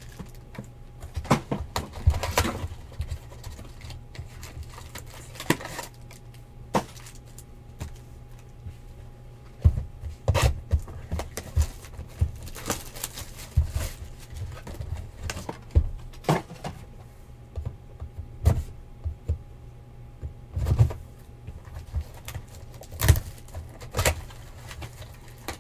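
Hands handling foil trading-card packs and cardboard hobby boxes on a table: scattered taps, knocks and rustles at irregular moments, over a steady low hum.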